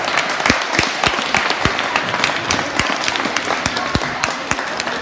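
Audience of schoolchildren applauding: a dense patter of many hands clapping.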